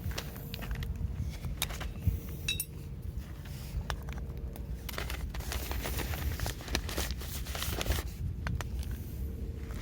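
Scattered clicks and light scrapes of gear being handled, with one short ringing clink about two and a half seconds in and a denser stretch of scraping near the end, over a steady low rumble.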